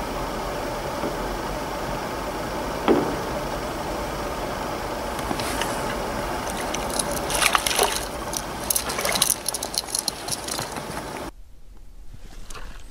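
Steady background hiss, with a single sharp click about three seconds in. From about five seconds in comes a run of sharp splashes and rustles, as a crucian carp takes the float under and is struck.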